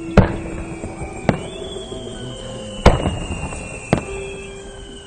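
Aerial fireworks shells bursting: four loud bangs about a second apart, each with a short echoing tail.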